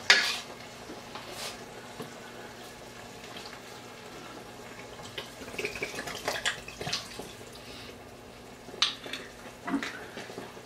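Red wine poured from a small single-serve bottle into a hot cast-iron Dutch oven of cooking vegetables, the liquid splashing and gently sizzling in the pot. There is a sharp click at the start and a few light knocks later on.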